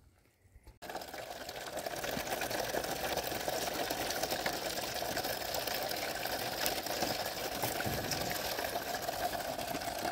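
Spring water spouting from a gap in a stone wall and splashing onto the rocks below, a steady rushing that begins suddenly about a second in.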